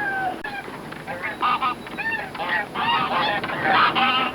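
Goose honking: a long call ends just at the start, then comes a quick run of short, rising-and-falling honks from about a second in.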